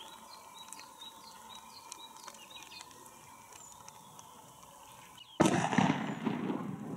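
Faint repeated bird chirps over quiet outdoor background, then about five seconds in a sudden loud shotgun blast followed by a noisy rush lasting over a second.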